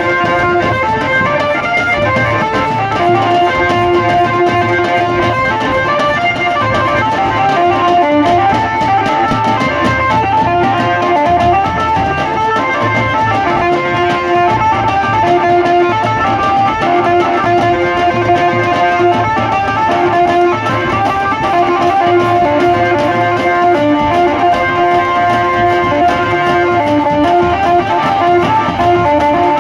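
Adivasi wedding band (band baja) playing: a bright, plucked-sounding lead melody stepping over a steady low drum beat, loud and unbroken.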